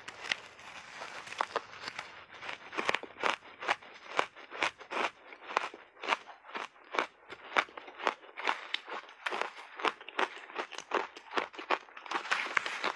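Crunchy shaved ice being bitten and chewed, a quick run of sharp crunches several a second, starting with a big bite.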